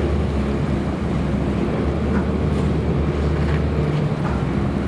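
Engine of the small ferry boat Wakato Maru No. 18, running steadily with a constant low hum, under wind on the microphone and water noise.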